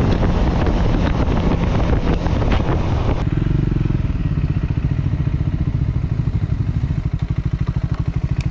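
Motorcycle engine running under a rush of wind and road noise that drops away about three seconds in. The engine then idles with an even, pulsing beat and cuts off at the very end.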